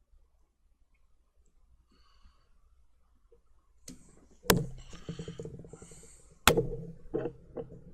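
Two sharp knocks about two seconds apart, starting about halfway in, with rattly handling clatter between them and a few lighter ticks after: tools or the phone being handled and set down on a hard work surface during a soldering repair.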